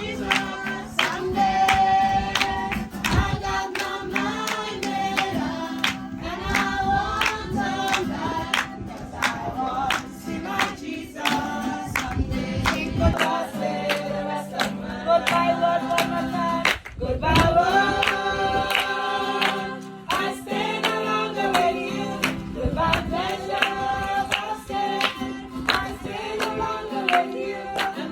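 A group of people singing a Christian worship song together, with steady rhythmic hand clapping to the beat.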